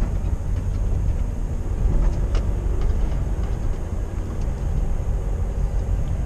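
Heavy truck's diesel engine running with a steady low rumble as the lorry moves slowly, heard from inside the cab, with a few light rattles and clicks.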